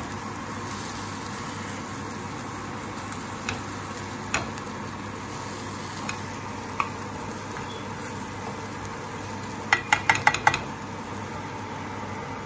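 Chickpea and vegetable stir-fry sizzling steadily in a frying pan while a spatula stirs it, knocking against the pan now and then, with a quick run of about six taps about ten seconds in.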